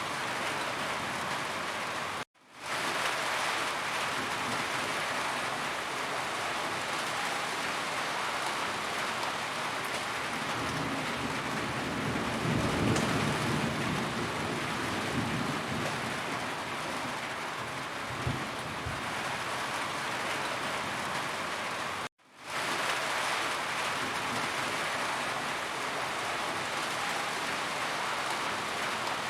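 Steady rain falling on a roof, with a low rumble of thunder swelling in the middle. The sound cuts out completely for a moment twice, a couple of seconds in and about two-thirds of the way through, then fades back in, as at a loop joint.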